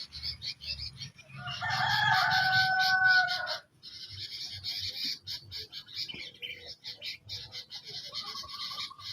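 A rooster crows once, a loud call lasting about two seconds that starts about a second and a half in, over continual high chirping and clucking from birds. Near the end a shorter, steadier call begins.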